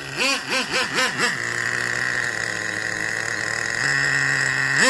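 Small nitro glow engine of an RC monster truck revved in four or five quick throttle blips, the pitch rising and falling each time, then running steadily as the truck drives, with two more quick revs near the end.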